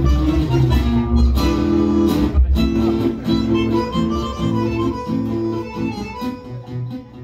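Live tango music: a plucked guitar with a sustained reedy melody instrument over it, the playing growing quieter near the end.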